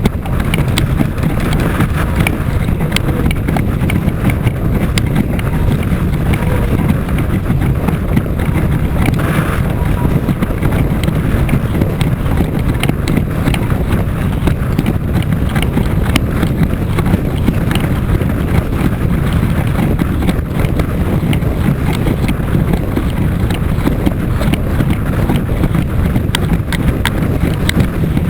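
Strong wind buffeting the microphone while windsurfing, a loud steady rumble with many quick small taps scattered through it.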